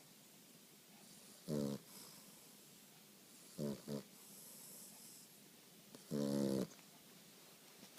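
A nine-week-old boxer puppy snoring in its sleep. There is one snore about a second and a half in, a quick double snore near four seconds, and a longer snore just after six seconds.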